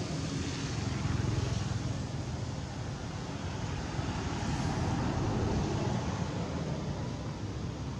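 A steady, distant engine drone over a hiss of outdoor background noise.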